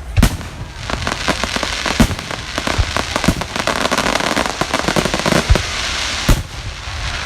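Aerial fireworks display: a string of sharp shell bangs, the biggest about a quarter second in, at about two seconds, and twice near the end, over a dense crackle of bursting stars that peaks in the middle.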